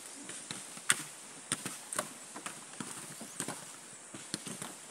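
Husked coconuts being tossed into a wooden cart box, landing with sharp hollow knocks against the planks and against each other. The knocks are irregular, about one every half second, and the loudest comes about a second in.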